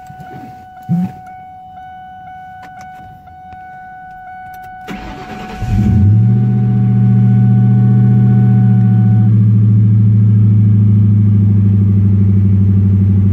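Ford Mustang GT's V8 engine started: a brief thump about a second in, faint steady electronic tones, then the starter cranks for about a second and the engine catches about six seconds in, settling into a loud, steady idle.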